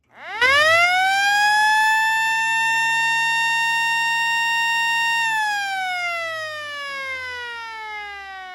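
Model A siren winding up from silence to a steady, loud, piercing tone, holding it for about five seconds, then winding down with falling pitch. This is one rise and fall of the wailing attack signal in a siren test.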